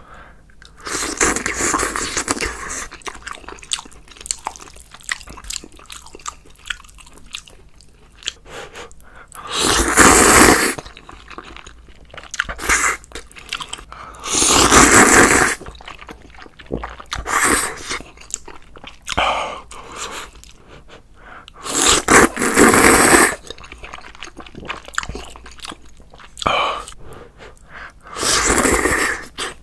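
Close-miked mouth sounds of someone eating sundae-gopchang stew with ramen noodles: steady chewing and biting, broken by four loud slurps, each about a second long.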